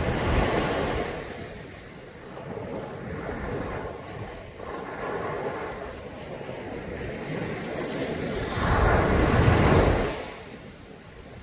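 Caribbean sea surf washing onto a beach: a wave breaks at the start, the wash subsides, and a louder wave breaks and rushes in about eight to ten seconds in before easing off.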